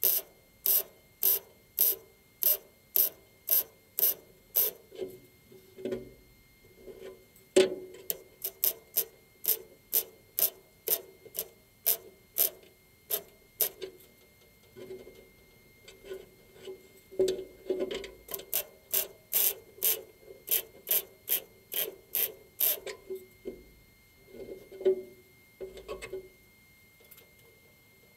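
MIG welder arc crackling in short bursts, about two a second, as spot welds are laid one after another on a steel repair panel. The run breaks off for stretches and stops near the end.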